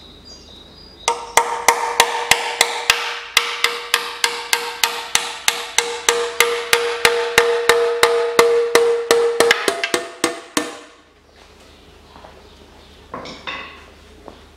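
Hammer striking a flat blade driven into the seam of a Mitsubishi 4B10 engine's oil pan, prising the pan off the block: about three blows a second for some nine seconds, with a metallic ring under the blows, then it stops.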